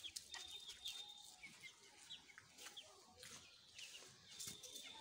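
Faint, scattered short chirps and quiet clucks from backyard chickens.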